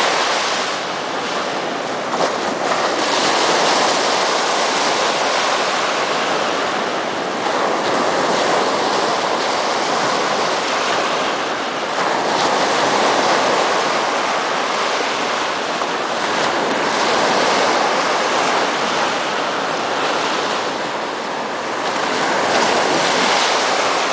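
Small ocean waves breaking and washing up a sandy beach, the surf rising and falling every few seconds.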